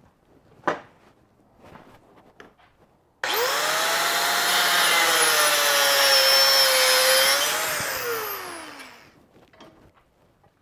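A sharp knock under a second in, then an angle grinder with a cut-off wheel starts with a rising whine about three seconds in and cuts through a metal paramotor frame tube for about four and a half seconds. The motor then spins down with a falling whine.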